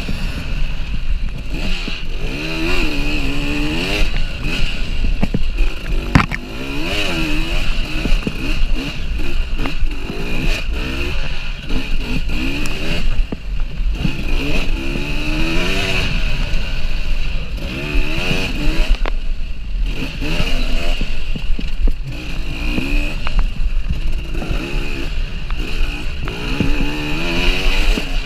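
KTM EXC 300 two-stroke enduro motorcycle engine revving up and dropping off again and again as the bike is ridden hard off-road, with knocks and clatter from the bike over bumps, including one sharp knock about six seconds in.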